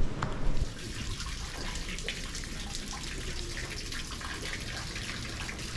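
Fountain water trickling and splashing into a stone basin, a steady patter of small splashes and drips. A few low thumps come before it in the first moment.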